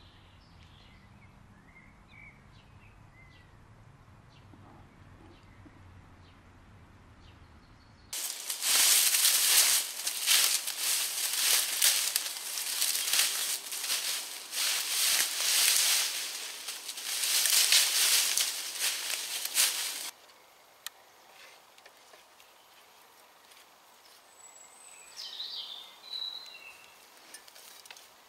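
Footsteps rustling and crunching through dry leaf litter and undergrowth, loud and uneven, starting abruptly about eight seconds in and cutting off suddenly some twelve seconds later. Before and after, quiet open air with a few faint bird chirps.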